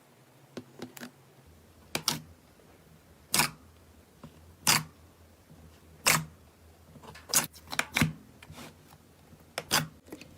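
Slime being squeezed and pressed, giving short, sharp pops and clicks about once a second, some in quick pairs.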